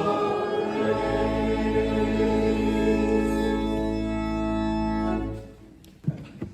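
Organ and singing voices ending a hymn: a final chord is held, with a deep bass note coming in about a second in, then released a little after five seconds and dying away. A couple of light knocks follow near the end.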